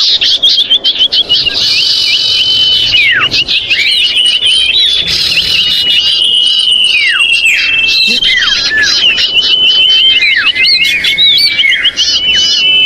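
Common iora (cipoh) calls, several birds chattering noisily at once with rapid ticking trills, held whistles and steep down-slurred notes overlapping. This is an agitated lure call used to draw the birds down for trapping.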